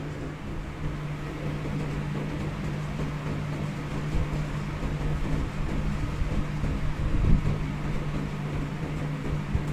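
Steady low mechanical hum with a room hiss, like a fan or air conditioner running. A brief thump about seven seconds in.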